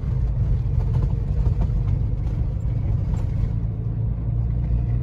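Steady low rumble of a vehicle heard from inside its cabin as it drives slowly along a dirt road: engine and tyres running.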